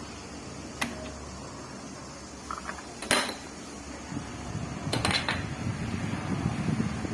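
Steady hum of a stand fan, broken by a few sharp clicks and knocks, with a rattle over the last couple of seconds.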